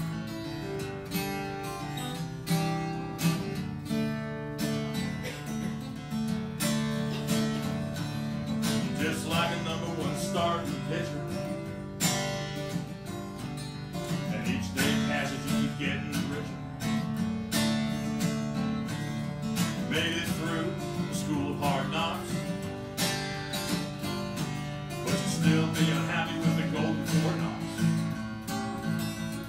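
Acoustic guitar strummed steadily in a blues song, played live.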